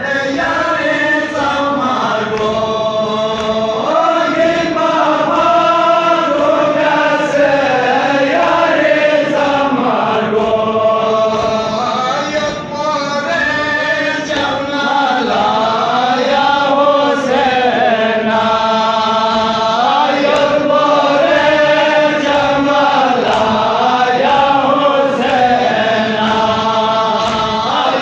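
A noha (Muharram lament): one man sings the verses through a microphone and a crowd of men chants the refrain with him in chorus. Beneath the singing runs a steady beat of hands striking chests in matam.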